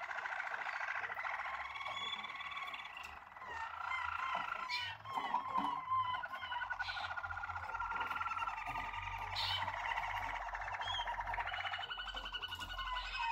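Malinois Waterslager canary song: a continuous run of rapid rolling trills and tours that shift from one pitch to another every second or two.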